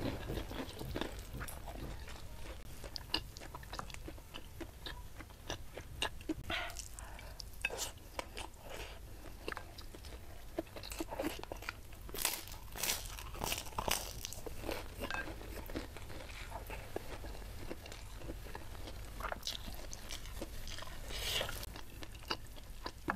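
Close-up chewing and crunching as a person eats a crisp cracker with rice and dry-fried anchovy sambal. Irregular crunches and mouth clicks, loudest in a run of bites about twelve seconds in.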